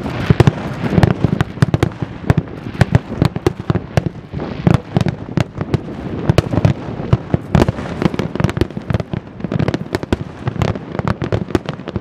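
Fireworks going off: a dense, irregular run of bangs and crackles with no let-up.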